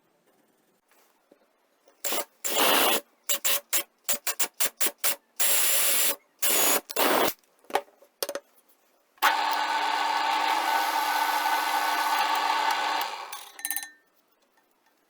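A power tool run in a series of short bursts, then held running steadily for about four seconds before winding down.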